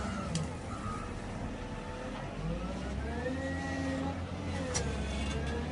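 Motor grader's diesel engine working under load, revving up about halfway through and settling back down near the end. Short beeps of a reversing alarm sound near the start.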